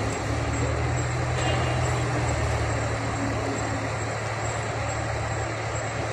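Hydra mobile crane's diesel engine running steadily: an even, low drone.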